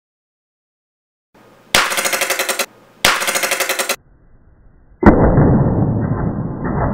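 Two bursts of fast rattling pulses, each just under a second long and close together. About five seconds in comes a single sharp, loud crack as a CO2 paintball marker's shot strikes the leather-covered ballistic gel block, followed by a rumbling noise with a few knocks.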